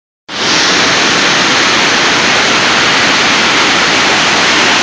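Waterfall: a loud, steady rush of falling water that starts abruptly just after the beginning.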